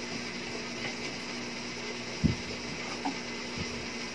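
Steady low room hum with a single dull low thump a little over two seconds in and a fainter one over a second later.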